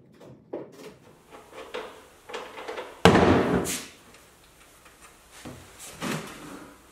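Workshop knocks and handling noises, with one sudden loud clatter about three seconds in that dies away over about a second, followed by a few softer knocks.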